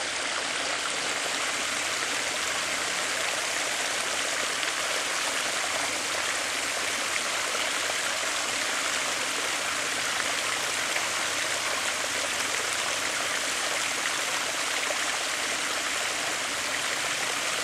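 Water rushing steadily over a spillway.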